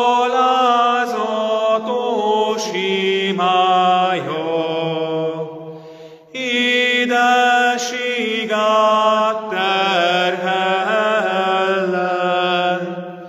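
A man's voice singing a church hymn in two long phrases, the second beginning about six seconds in after a short breath.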